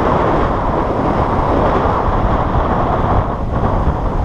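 Strong wind buffeting the action camera's microphone, with breaking surf and a wave's foamy wash running up the sand.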